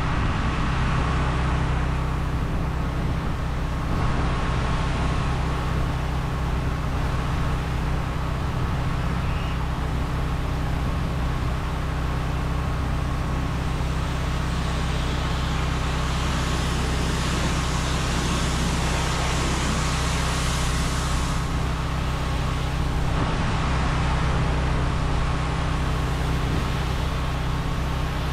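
Engine-driven pressure washer running steadily while its water spray rinses a treated render wall, the spray hiss growing stronger for several seconds around the middle.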